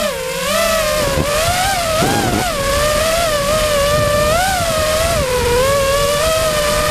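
FPV quadcopter's brushless motors and propellers whining as heard from its onboard camera, the pitch rising and falling as the throttle changes, over a steady rushing noise.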